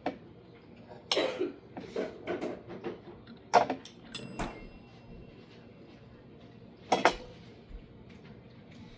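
Clinks and knocks of dishes and cutlery being handled, with a brief high metallic ring about four seconds in and a sharp knock near seven seconds.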